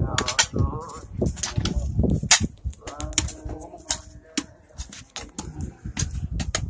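Long-handled hoes chopping and scraping into loose, lumpy earth while a grave is filled in by hand: a quick, irregular run of sharp strikes and scrapes. Voices talk quietly in between.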